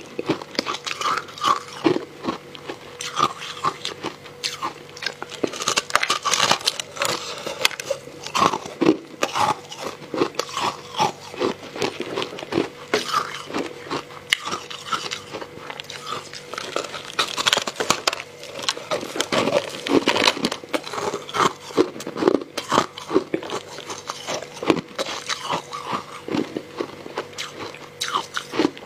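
Close-miked biting and chewing of hard ice chunks coated in matcha powder: a dense, irregular run of crisp, loud crunches.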